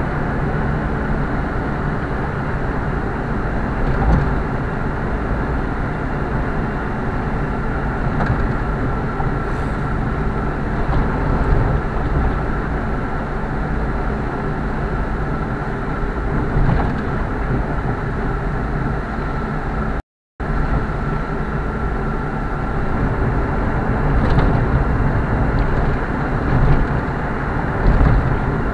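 A car driving at steady speed, heard from a camera in the car: a constant low rumble of tyres and engine with a faint steady whine, and a few short thumps. The sound cuts out for a moment about twenty seconds in.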